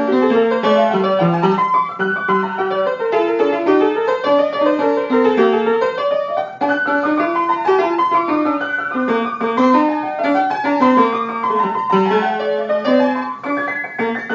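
A piano being played with both hands: quick runs of notes stepping up and down over a lower line, going on without a pause.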